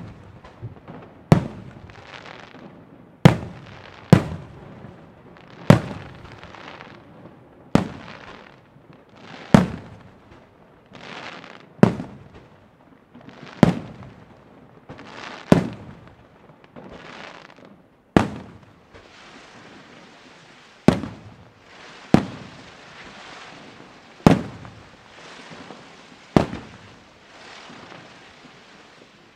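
Aerial firework shells bursting one after another, about fifteen sharp bangs roughly every two seconds, each trailing off in a fading tail.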